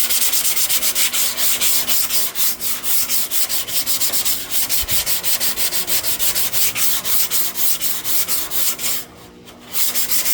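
80-grit sandpaper rubbed by hand over cured automotive body filler, in fast back-and-forth strokes about four or five a second. There is a short pause about nine seconds in.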